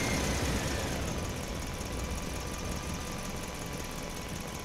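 Toy trucks' engine sound, a steady idling rumble. A faint whine drops in pitch about a second in and then holds steady.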